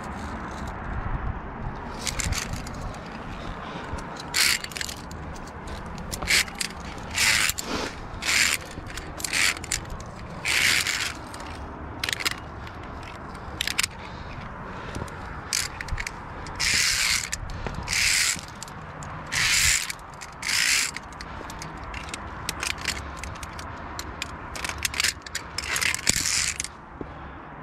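Via ferrata carabiners sliding and scraping along the steel safety cable: about twenty short metallic rasps at irregular intervals, over a steady low rumble.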